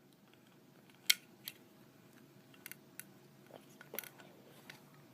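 A few light, separate clicks and taps of plastic Play-Doh tools being handled while shaping dough, the sharpest about a second in and near four seconds.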